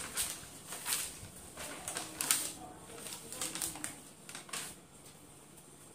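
Paper rustling as loose notebook sheets are handled and turned over, in a run of quick crackling rustles that thin out about five seconds in.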